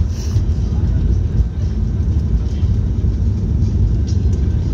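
Airbus A320 heard from inside the cabin as it rolls out on the runway after touchdown: a loud, steady low rumble of the wheels and engines, ground spoilers up.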